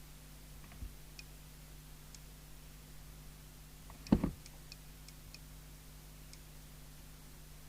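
A single sharp knock about four seconds in, with a few faint light clicks scattered either side, over a steady low electrical hum.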